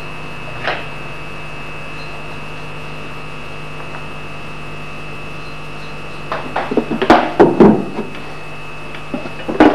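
A steady hum with little else for about six seconds, then a run of sharp knocks and clatters, some of them loud, as tools are handled and set down on the axe-grinding jig and vise, with a few more knocks near the end.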